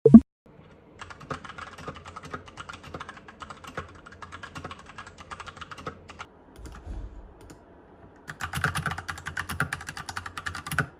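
Rapid typing on a mechanical keyboard, the keys clicking in two spells: about five seconds, a short pause, then a louder burst of about two and a half seconds near the end. A brief loud thump at the very start.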